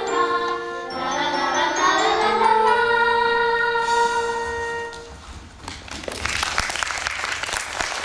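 Children's voices singing the close of a song with musical accompaniment, ending on a held chord about five seconds in. Audience applause then starts and carries on.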